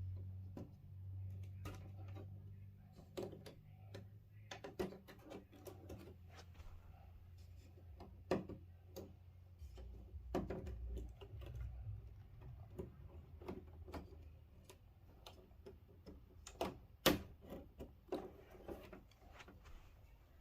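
Irregular light clicks and taps of plastic and metal parts being handled while an LED TV is taken apart, with one sharper click about 17 seconds in.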